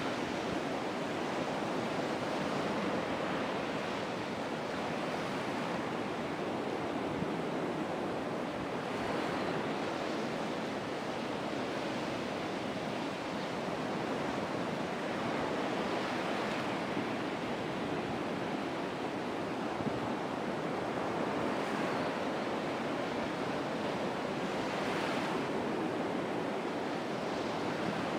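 Steady wind noise on the microphone, with a few louder rushes that swell and fade.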